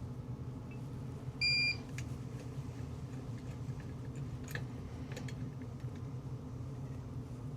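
A single short electronic beep about one and a half seconds in, over a steady low hum, with a couple of faint clicks later on.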